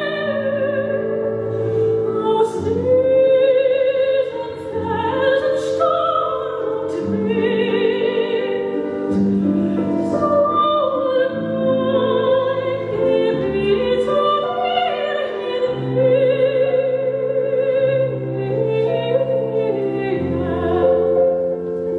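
Operatic singing with a strong vibrato, long held notes over a low sustained instrumental accompaniment. A few faint sharp taps sound during the first half.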